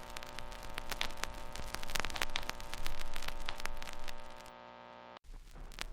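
Electrical mains hum with crackling static on the recording, a steady buzz peppered with irregular clicks, which drops away near the end and cuts off abruptly, leaving faint hiss with a few clicks.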